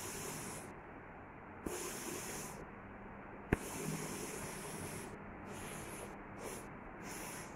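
Disinfectant sprayer hissing in a series of short spray bursts, some under half a second and the longest about a second and a half, with a brief click about three and a half seconds in.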